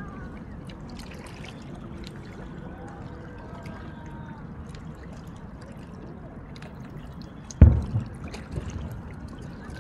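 Faint crowd voices and scattered small crackles, then near the end a single sudden deep firework bang that dies away over about a second.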